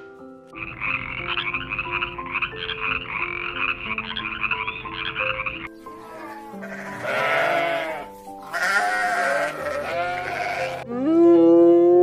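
Sheep bleating twice over background music, preceded by a rapid rattling, croak-like animal call that lasts about five seconds. Near the end comes a loud call that rises in pitch.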